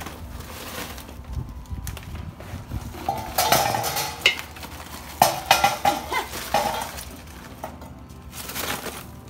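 Kingsford Match Light charcoal briquettes poured from their bag into a stainless-steel Orion cooker, clattering against the metal in quick clusters, mostly between about three and seven seconds in.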